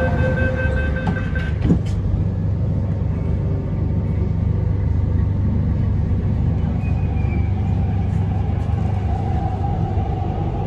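MTR C-Train metro train running, heard from inside the carriage: a steady low rumble of the wheels on the track. Near the end the traction-motor whine starts to rise in pitch as the train picks up speed.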